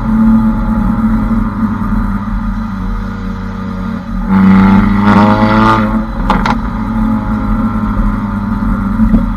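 Skoda Octavia vRS with a Remus aftermarket exhaust, heard right at the tailpipe: a steady engine drone while cruising, then about four seconds in the car accelerates and the note rises in pitch for a second and a half, ending in a short sharp crack.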